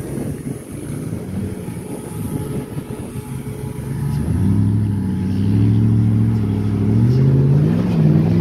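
Pickup truck engine working up a steep dirt trail, growing louder as the truck comes closer; about halfway it settles into a steady engine note, and the revs rise near the end as the front wheel crawls over the rocky ground.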